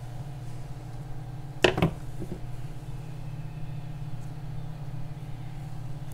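Steady low hum from a running machine or appliance in the workshop. About a second and a half in there is a sharp knock, followed by two lighter taps.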